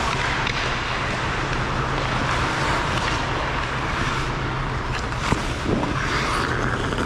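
Hockey skates scraping and carving the ice as a steady hiss over a low steady hum, with one sharp knock about five seconds in as play reaches the net.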